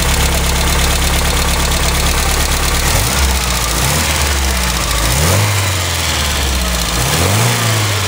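1984 Mazda 626's FE four-cylinder engine running with the bonnet open, idling steadily, then revved up and let back down a few times in the second half. The owner says the tappets are out of adjustment.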